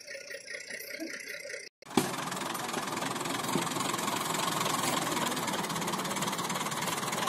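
Massey Ferguson tractor's diesel engine running steadily close by, a dense rapid clatter that comes in suddenly about two seconds in.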